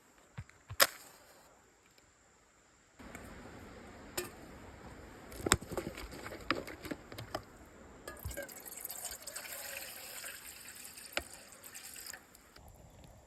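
Liquid being poured and handled, with a sharp knock about a second in and scattered clinks and knocks. The pouring sounds louder and higher near the end.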